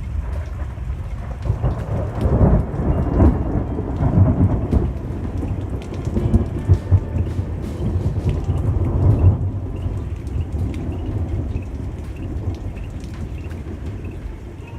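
Thunderstorm: steady rain with rolling thunder rumbling, heaviest a couple of seconds in and again around nine seconds, easing off over the last few seconds.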